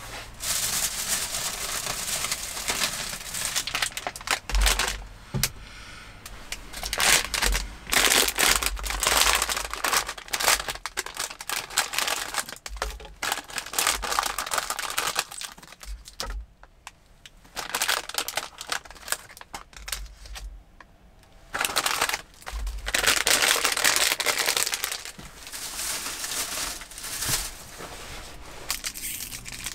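Plastic snack packaging crinkling and rustling in bursts as a bag of individually wrapped stick snacks is handled, opened and emptied, with short pauses between bursts. There are a few soft knocks on the wooden table.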